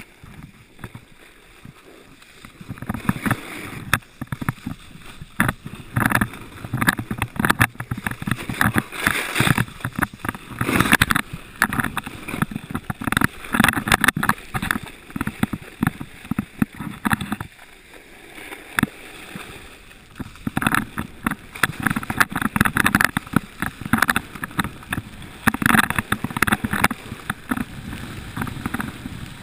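Snowboard sliding and carving down packed snow, its edge scraping in irregular rushes, quieter for the first couple of seconds.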